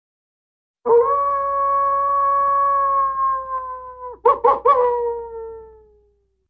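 Wolf howling: starting about a second in, one long, slightly falling howl, broken near the end by a few short yips, then a last note that slides down and fades away.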